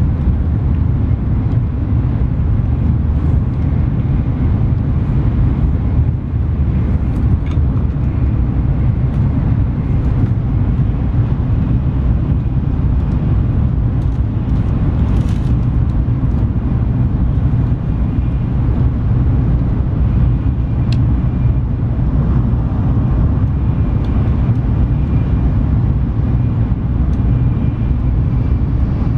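Cabin noise inside an N700S Shinkansen train running at high speed: a steady low rumble with a few faint clicks.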